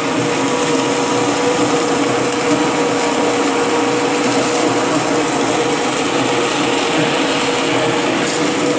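Heavy-duty immersion (stick) blender running steadily in a stockpot of lobster bisque, puréeing the soup. It makes a steady motor hum over a loud, even rush.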